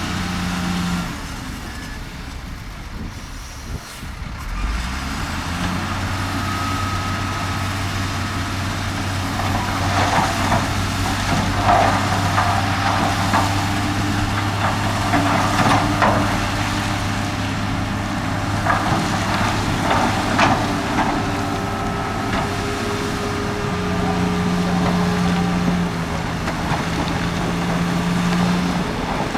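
Heavy diesel earthmoving machinery engines running steadily, with a run of metallic clanks and knocks through the middle.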